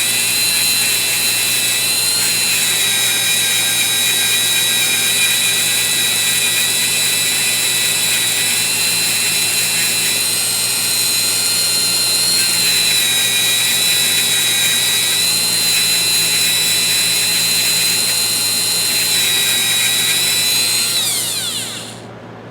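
Small high-speed rotary tool spinning a plastic 400-grit abrasive wheel against the grooves of a ratchet: a steady high whine that dips slightly a few times under load, then winds down and stops near the end.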